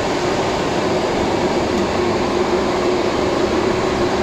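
Steady cockpit noise of a Beriev Be-200 amphibious aircraft in flight: its two D-436TP turbofan engines and the airflow make an even drone, with a steady hum running through it.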